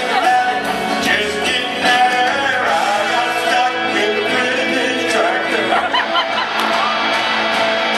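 Live music: a man singing to his own electric guitar.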